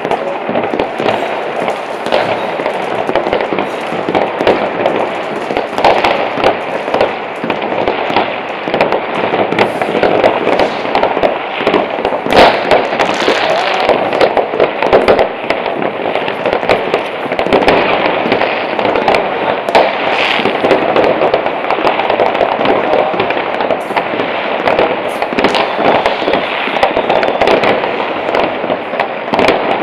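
Many fireworks going off across a town at once: a dense, unbroken crackle of firecrackers and exploding shells with frequent sharp bangs, the loudest about twelve seconds in.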